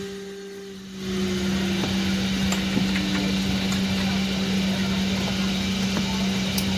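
Airliner cabin air-conditioning rush cutting out abruptly, then building back up after about a second and running steadily, with a steady low hum underneath. While the airflow is off, a fan tone falls slowly in pitch as it spins down.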